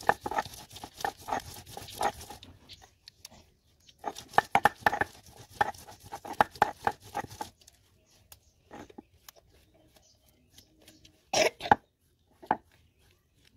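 Stone grinder rubbed back and forth on a flat grinding stone (sil-batta), grinding a wet red paste in quick, rhythmic strokes, about three a second. It comes in two runs with a short pause between. Near the end there are a couple of louder single knocks or scrapes as the grinding stone is set on the slab and the paste is gathered.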